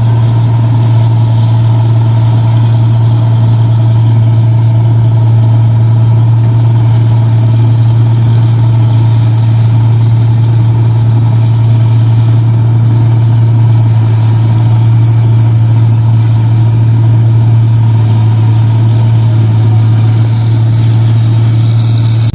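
Rice combine harvester's engine running loud and steady through its aftermarket 'power' exhaust: a deep, even drone that holds one speed throughout.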